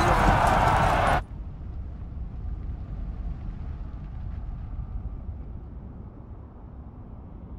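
A mass of charging warriors roaring a battle cry, loud for about a second and then cut off suddenly, giving way to a low, steady rumble.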